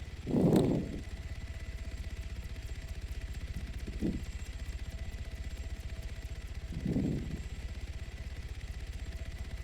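Heavy breathing close to the microphone: three loud breaths a few seconds apart, the first the loudest, over a steady low rumble.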